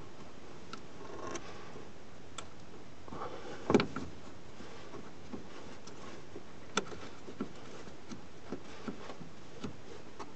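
Hands fitting a plastic fuel-line quick connector onto the top of a fuel pump module: scattered small clicks and knocks, with one louder knock about a third of the way in and another about two-thirds in.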